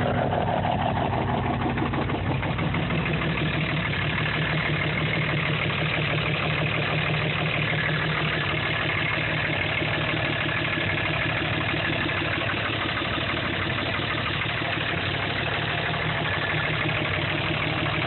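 2005 Dodge Ram 3500's 5.9 L Cummins common-rail inline-six turbodiesel idling steadily. The engine has heavy crankcase blow-by, enough to make a loosely set oil filler cap dance, from damage caused by bad injectors; it needs a rebuild.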